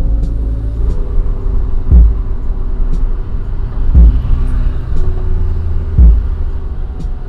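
Stock 2013 Daihatsu Xenia VVT-i on the move, a steady low rumble of engine and road. Music plays over it, with a deep falling bass thump about every two seconds and light ticks between the thumps.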